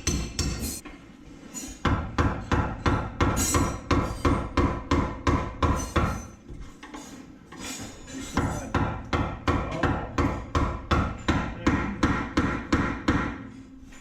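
Hammer blows on metal during rust repair, struck in quick, even runs of about three to four a second, with two short pauses.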